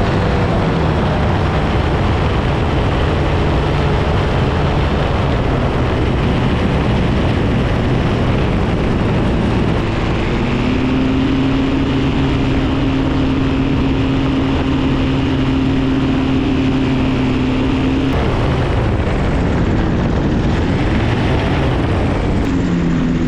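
Paramotor engine and propeller running steadily in flight, mixed with heavy wind rush on the microphone; the engine note changes about ten seconds in and again about eight seconds later.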